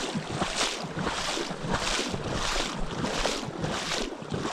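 Someone wading through shallow marsh water, each stride a swishing splash, about one every two-thirds of a second.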